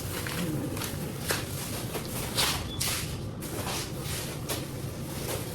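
Rustling and handling noises with scattered short knocks and clicks, one sharper click about a second in, as groceries and kitchen items are moved about.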